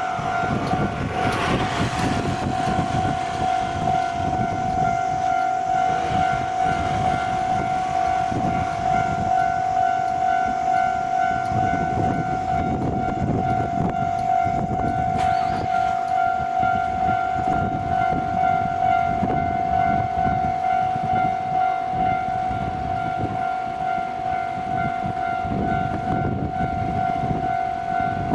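Japanese railway level-crossing warning bell ringing at one steady pitch, with a low rumble underneath.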